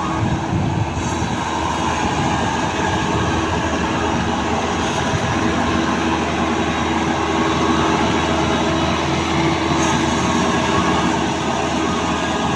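Maxxi Bimo combine harvester running steadily under heavy load as it works its way out of mud.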